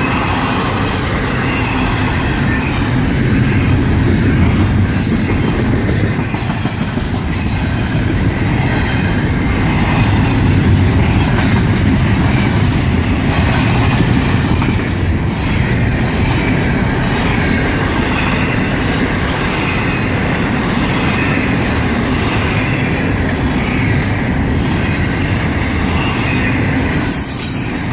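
Long freight train's cars rolling past close by: a steady rumble and clatter of steel wheels on the rails.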